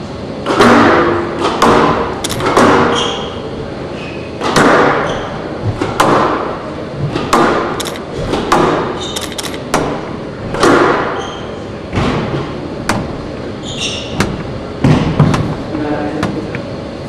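Squash rally: the ball cracking off racquets and walls about once a second, each hit echoing through the hall, with occasional short squeaks of court shoes on the wooden floor.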